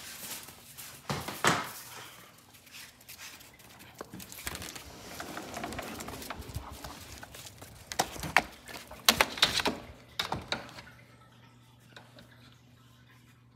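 Doberman dogs and puppies scrambling about, claws and paws clicking and scraping on hard floor, with a cluster of sharper knocks about eight to ten seconds in, then quieter near the end.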